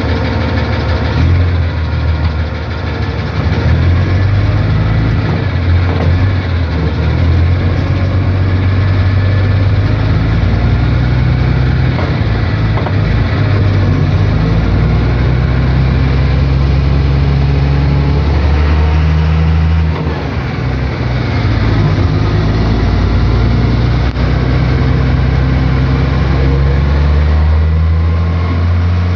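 Truck engine running steadily under load during a road test, with a brief dip in level about twenty seconds in. The differential runs without whining, its pinion bearings freshly replaced.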